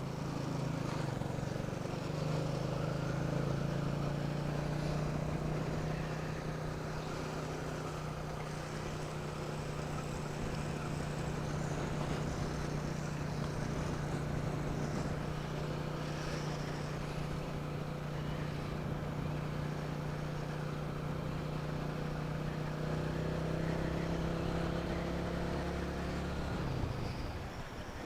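Motorcycle engine running at a steady speed while riding, its pitch holding nearly constant.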